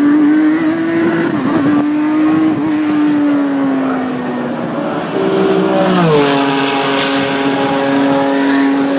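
1997 Benetton Formula One car's V10 engine running at high, steady revs, its pitch gliding down sharply about six seconds in and then holding level.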